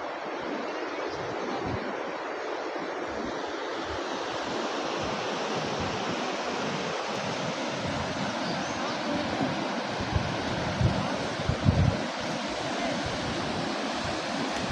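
Steady rushing wind noise, with a few gusts buffeting the microphone about ten to twelve seconds in.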